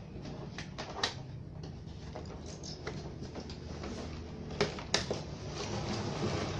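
The plastic rear cabinet of a CRT television being handled and fitted over the set: scattered plastic clicks and knocks, the sharpest about a second in and twice more near five seconds in, over a low steady hum.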